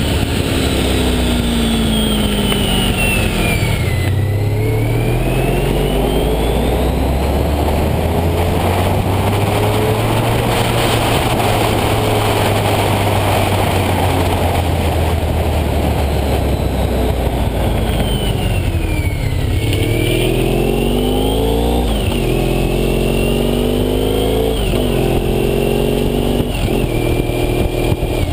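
Honda ST1300's V4 engine through Staintune mufflers, heard from the moving bike: it slows for the first few seconds, pulls back up and holds steady, eases off again, then accelerates hard through about three quick upshifts near the end. A high gear whine rises and falls with engine speed over a steady rush of wind.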